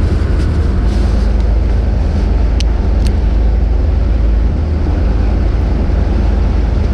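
Steady low rumble of the fishing boat's engine mixed with wind on the microphone, with two faint short clicks about halfway through.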